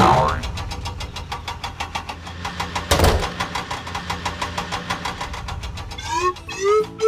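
Cartoon vehicle engine sound effect, chugging evenly at about six beats a second. A sudden loud hit comes at the start and another about three seconds in, and a bouncy tune of gliding notes starts near the end.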